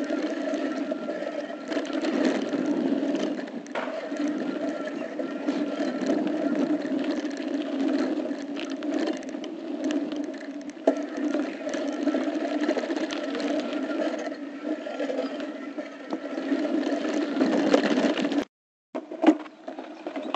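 A bicycle riding over a dirt BMX pump track, heard through a bike-mounted camera: steady rushing wind and tyre noise with scattered rattles and clicks from the bike. The sound drops out for about half a second near the end, followed by a few sharp knocks.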